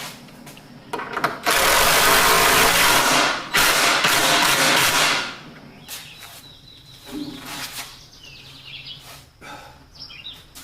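A power tool runs in two bursts of about two seconds each, back to back, then stops; faint bird chirps follow.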